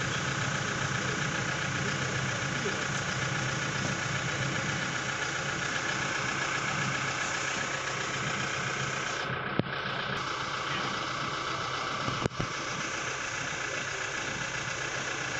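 An engine idling steadily, with two sharp clicks about two and a half seconds apart near the middle.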